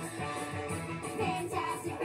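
Upbeat song with singing, playing from a television.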